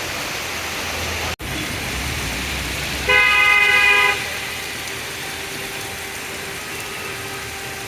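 Steady heavy rain, with a vehicle horn sounding once for about a second near the middle.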